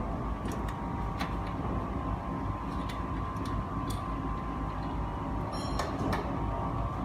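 Steady workshop machinery hum, with scattered light clicks and taps of metal parts being handled and fitted on the labeling machine. There is a short cluster of ringing metallic ticks about six seconds in.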